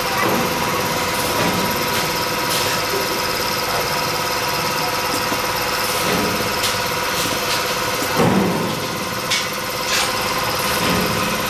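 Steady machine hum with a few constant tones over a hiss of compressed air from a powder spray gun. A few short knocks, the loudest about eight seconds in.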